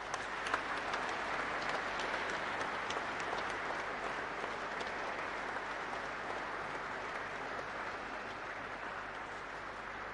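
Audience applauding steadily, slowly fading near the end.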